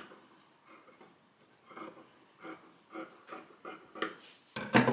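Fabric being cut across with scissors: a series of short snips, about two a second, then a louder rustle near the end as the cut piece is handled.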